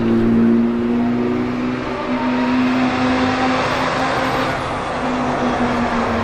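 A fire engine's diesel engine running as the truck drives along, a steady pitched hum that steps up slightly about two seconds in.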